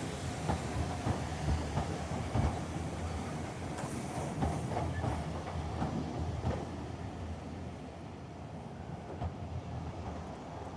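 Train pulling in, its wheels rumbling and clattering over the rail joints with irregular knocks, growing gradually quieter as it slows.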